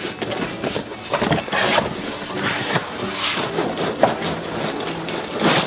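A cardboard LEGO set box and its plastic-wrapped contents being handled: irregular rustling, rubbing and scraping, with a few sharper clicks.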